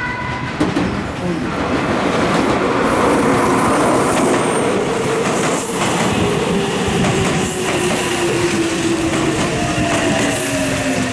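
Meitetsu 2000 series μSKY electric train running past at close range, its wheels clattering over the rails and points. Over the second half an electric whine slowly falls in pitch.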